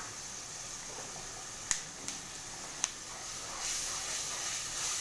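Tomato-onion masala paste sizzling in hot oil in a nonstick kadai as it is fried down, with three sharp clicks of a plastic spatula against the pan. The sizzle swells near the end as the paste is stirred and gives off steam.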